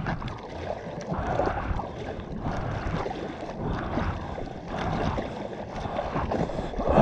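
Hands paddling a soft-top surfboard through the sea, with a splash and slosh of water at each stroke, roughly once a second.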